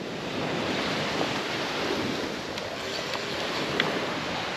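Surf washing onto a sandy beach, a steady rushing hiss, with wind on the microphone.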